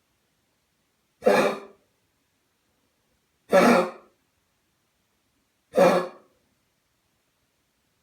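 A cocker spaniel with kennel cough (infectious tracheobronchitis) coughing three times, about two seconds apart, each cough short and lasting about half a second.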